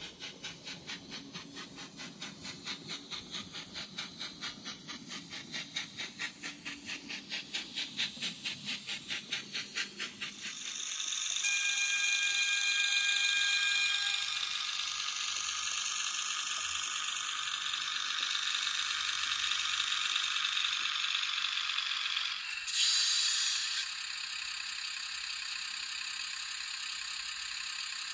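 An N-gauge model train running on the layout, its wheels clicking evenly over the rail joints about two to three times a second over the low hum of the motor. About ten seconds in this gives way to a steady hiss, with a short steady tone near the start of the hiss.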